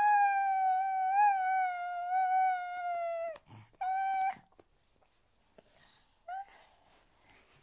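A month-old baby boy singing: one long, high note held for about three seconds, then a shorter note and a brief third one later.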